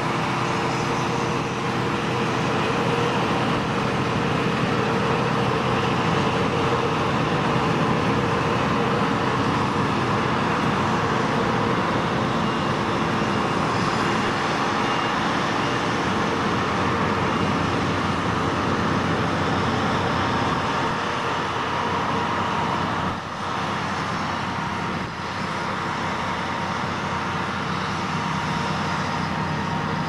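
Combine harvester running while harvesting grain: a steady engine-and-machinery drone with several held tones, dipping briefly twice about two-thirds of the way through.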